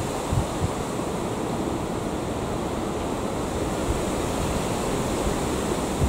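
Steady rush of wind on the microphone over the low rumble of a Class 43 HST diesel power car approaching at low speed.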